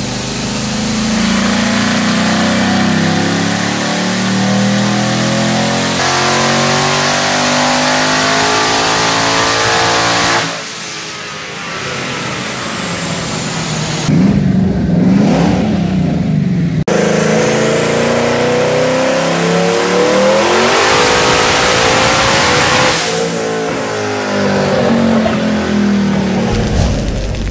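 Twin-turbocharged 5.0 L V8 of a 2017 Ford Mustang GT run hard through several full-throttle pulls. The engine note climbs in pitch and drops back between them, with a quieter stretch about a third of the way in.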